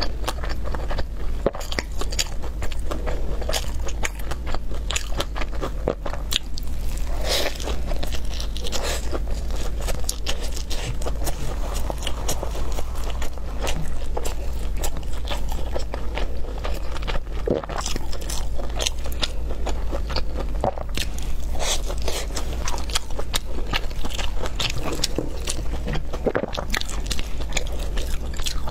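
Close-miked mukbang eating sounds: crisp crunchy bites and chewing of a loaded shouzhuabing (crispy layered Chinese flatbread wrap), with many small irregular crackles.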